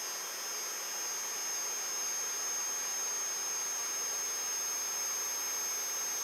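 3D printer's Z-axis stepper motors turning the threaded rods as the axis travels down, a steady high-pitched whine over a hiss.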